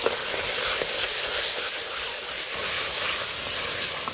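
Masala of onions, tomatoes and chillies frying in oil in a clay pot, a steady sizzle, with a ladle stirring it and knocking lightly against the pot a couple of times near the start.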